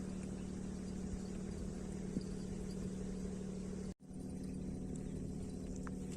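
An engine running steadily at an even low hum, with a fine regular pulsing; the sound cuts out for an instant about four seconds in.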